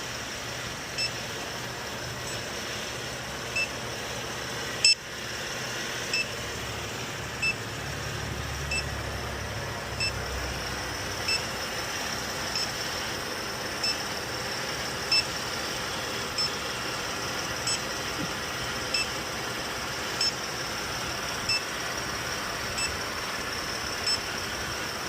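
Electronic refrigerant leak detector beeping at a slow, even pace, about one short high beep every 1.3 s, the resting rate that shows no refrigerant being picked up. Under it is a steady hiss, with one sharp click about five seconds in.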